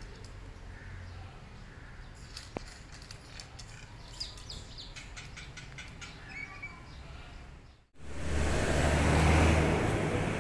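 A cat crunching dry kibble from a plate, a run of small sharp clicks, with a few faint bird chirps. About eight seconds in the sound cuts off, and loud wind rumbles on the microphone.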